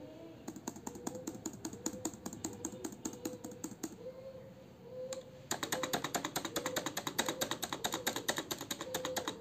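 Lenovo IdeaPad laptop space bar tapped rapidly, a quick run of light clicks several times a second; after a short pause, the space bar of a non-mechanical (membrane) Zebronics desktop keyboard tapped just as fast, with louder, fuller clacks.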